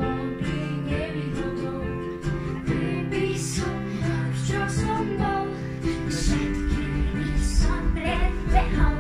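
Children singing a Slovak song, accompanied by a strummed small guitar and piano.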